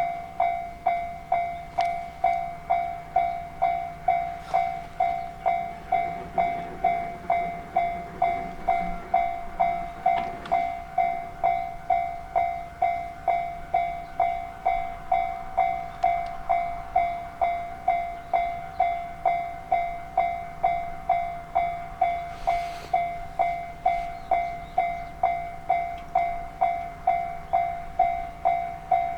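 Japanese railway level-crossing warning bell sounding its steady 'kan-kan' ding, a little under two strikes a second, each strike fading before the next. A faint low rumble rises under it about six seconds in and fades a few seconds later.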